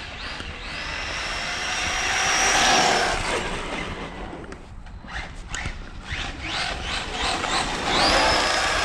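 Maverick Quantum RC truck's electric motor and drivetrain whining at full throttle, on a 3S battery: the whine climbs steeply in pitch within the first second, holds high and loud until about three seconds in, then fades, and a second climbing whine comes near the end.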